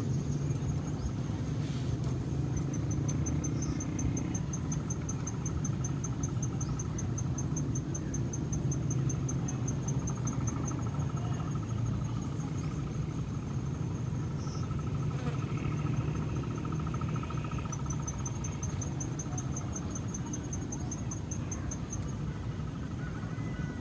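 Insects trilling in long, evenly pulsed high-pitched runs that start and stop, over a steady low rumble.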